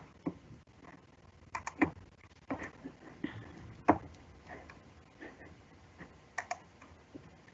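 Scattered, irregular clicks and taps from a computer keyboard and mouse being used.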